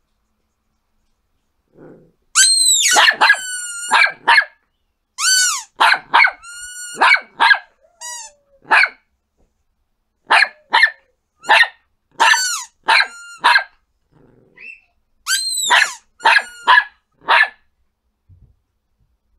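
Yorkshire terrier yapping: runs of short, high-pitched barks starting about two seconds in, with a brief lull partway through.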